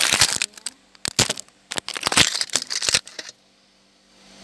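Crinkling and rustling of handled packaging, in quick irregular bursts for about three seconds, then it stops.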